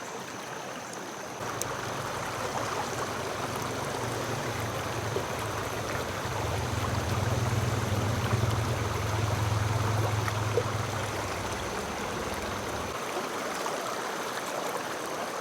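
Mountain creek water running steadily, with a low rumble that comes in about a second and a half in, swells in the middle and drops away near the end.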